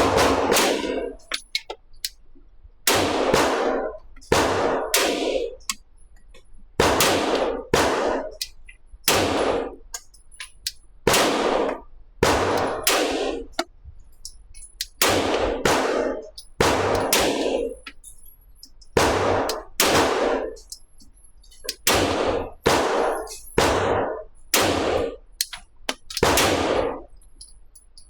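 Glock 17L Gen 5 9mm pistol firing a string of shots from a PMag magazine, singly and in quick pairs about a second apart with short pauses, each shot with a short ringing tail. The pistol cycles every round without a stoppage.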